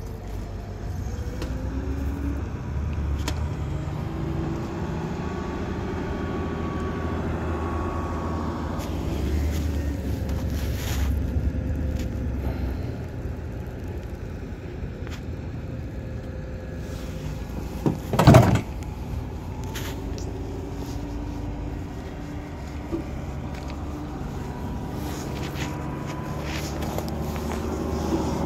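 A motor vehicle's engine running nearby with a steady low rumble and a faint hum that shifts slowly in pitch, broken once about two-thirds of the way through by a single loud knock.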